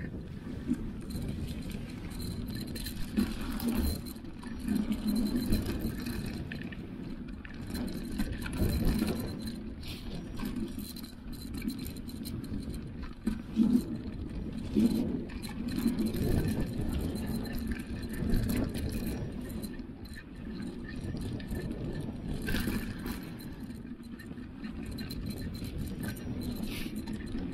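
Mountain bike ridden along a dirt forest singletrack: an uneven low rumble of tyres on the trail and wind on the microphone, broken by frequent rattles and knocks from the bike over bumps.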